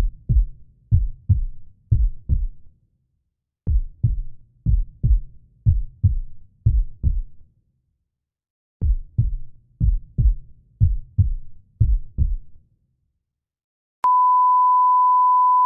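Edited-in sound effects: deep thumps in pairs, about one pair a second, like a heartbeat, in three runs with short gaps. Near the end comes a steady high beep of about two seconds.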